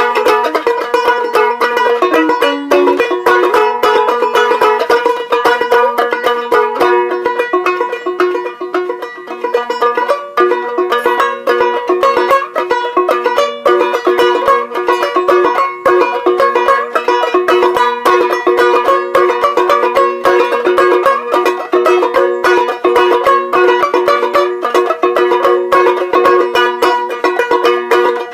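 Banjo ukulele strummed in a quick, steady rhythm, playing a tune solo.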